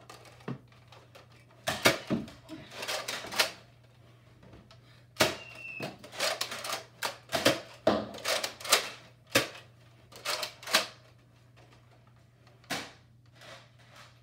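Toy foam-dart blasters being worked and fired, heard as runs of sharp plastic clacks and snaps in quick succession, with a short high squeak about five and a half seconds in.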